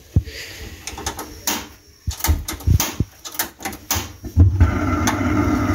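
Scattered clicks and knocks as a steel gas stove and its aluminium kadai are handled and the burner is lit. From about four and a half seconds in, the lit gas burner runs with a steady hiss and low rumble.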